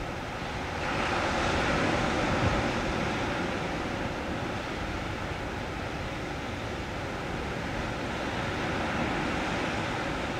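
Steady rush of sea waves and wind, a little louder for a couple of seconds near the start.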